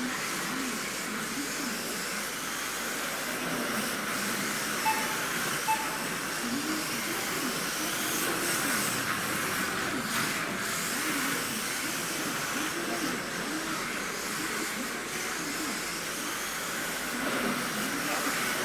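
Kyosho Mini-Z RC cars running laps: their small brushless electric motors whine, rising and falling in pitch as they speed up and brake through the corners, over a steady hiss of the running cars. Two short beeps sound about five seconds in.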